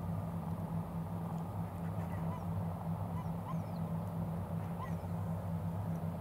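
Steady low hum with a few faint, short rising bird calls in the distance.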